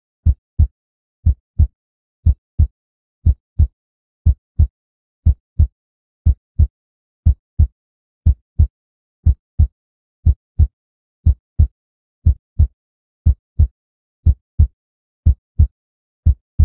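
Slow heartbeat sound effect: pairs of low thumps, lub-dub, about one beat a second, steady and even.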